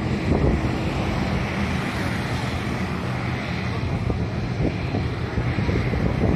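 Strong wind buffeting the microphone, over a steady low rumble.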